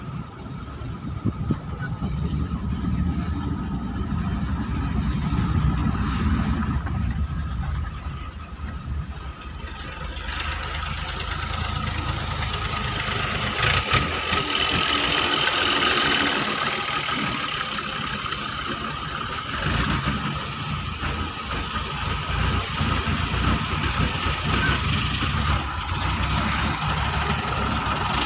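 A machine running steadily with a thin, constant high whine over a low rumble; the rumble eases and a hissier noise takes over about a third of the way in.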